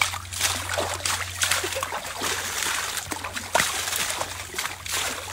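Repeated splashing of shallow river water, scooped up with a bowl and thrown against someone's legs, in a quick irregular run of splashes and sloshes.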